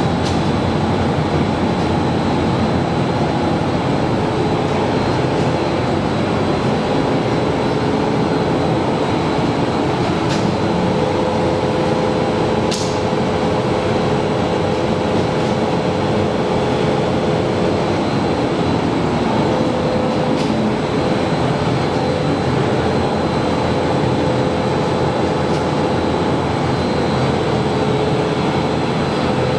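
Needle-punching nonwoven machine running steadily: a loud, continuous mechanical drone of the needle loom, with a faint steady whine over it.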